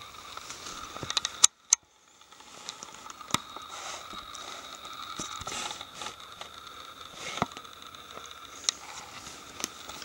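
Handling noise from a hand-carried camera and footsteps on leaf litter and patchy snow: scattered crackles and clicks over a faint steady hiss. A sharp click about a second and a half in is followed by a brief gap of near silence.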